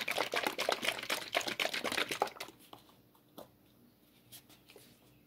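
Dense crinkling and rustling from handling the black paint squeeze bottle, stopping about two and a half seconds in; a few faint clicks follow.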